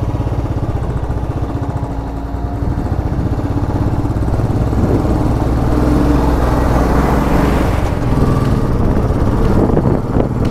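Royal Enfield Classic 500's single-cylinder engine running steadily under way, its exhaust beat heard from the bike itself, with wind and road noise growing louder about halfway through.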